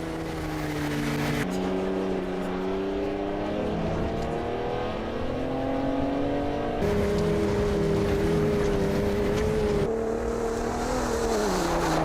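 Ford F-150 Raptor's twin-turbo 3.5-litre EcoBoost V6 running under way, rising in pitch as the truck accelerates through the middle stretch. The engine note changes abruptly a few times, as if cut between separate drive clips.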